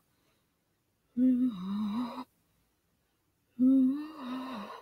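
A person's voice making two drawn-out wordless sounds, each about a second long, held at a steady pitch with a slight wobble.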